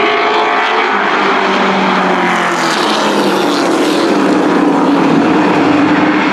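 A pack of short-track race trucks running at racing speed, several engines overlapping, their pitches sliding up and down through the turn. A rush of noise swells about three seconds in as the pack passes closest.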